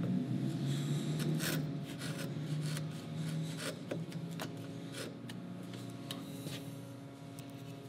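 Bench chisel scraping and paring across butternut, a string of short scrapes and light clicks as it severs the end-grain fibres and lifts chips out of the dado.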